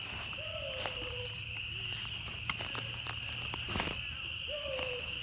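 Footsteps crunching through dry leaves and twigs, with a hunting hound baying faintly twice, each a drawn-out howl that falls slightly in pitch. A steady high-pitched chorus runs underneath.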